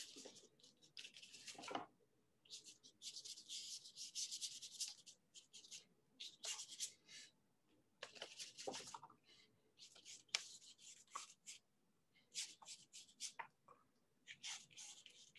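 Faint strokes of a paintbrush scrubbing across paper: irregular clusters of short, scratchy brush strokes with brief pauses between them.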